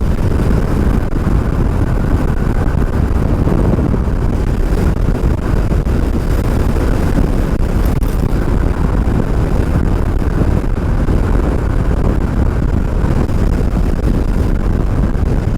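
Wind rushing over a helmet-mounted microphone on a rider moving at speed on an electric bike: a steady, loud rumbling buffet with no engine note.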